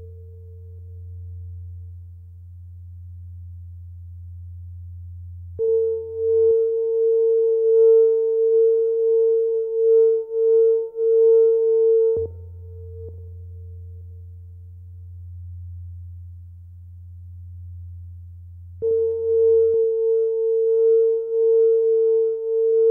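Experimental electronic music of bare sustained tones. A low hum and a high, pure tone with faint overtones take turns, each lasting about six and a half seconds and cutting in abruptly. The high tone swells and dips unevenly.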